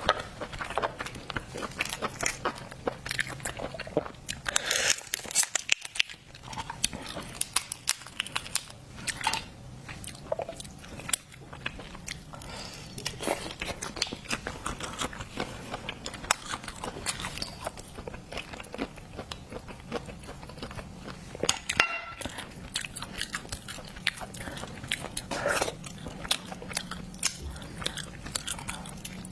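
Close-miked chewing and biting of seafood: wet mouth clicks and crunching in quick, irregular succession.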